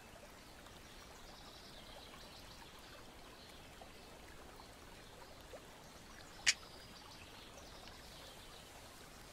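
Faint steady hiss with one sharp click about six and a half seconds in, from laser-cut MDF puzzle pieces being handled and fitted together.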